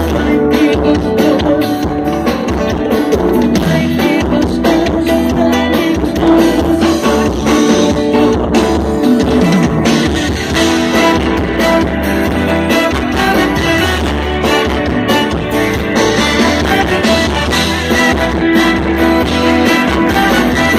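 Live band music played loud through a stage PA system, with guitar and a singing voice, during a soundcheck.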